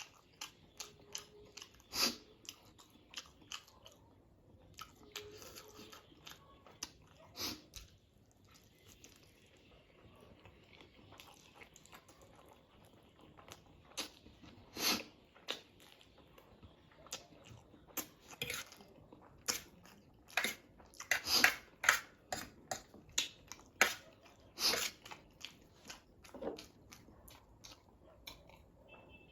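Close-miked chewing and mouth sounds of someone eating spicy noodles: a run of short wet smacks and clicks, more frequent in the last third.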